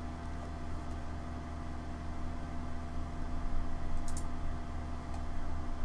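Steady electrical hum and hiss of an open microphone, with a quick double click about four seconds in and a single faint click a second later.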